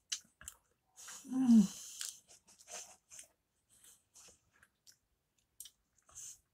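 A loud slurp of instant noodle broth from a spoon about a second in, together with a short hum that falls in pitch, then quiet chewing and small clicks of the metal spoon in the noodle pot.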